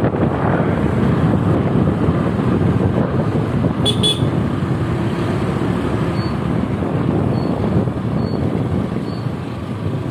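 Steady rumble of wind buffeting the microphone, mixed with road noise while travelling along a road. A short double beep sounds about four seconds in.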